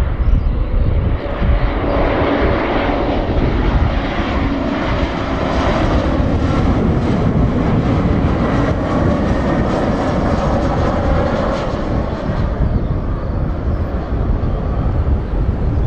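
Embraer 190 jet airliner on landing approach, its twin GE CF34-10E turbofans running with a steady rumble and a faint whine. The noise swells from about two seconds in and eases off near the end.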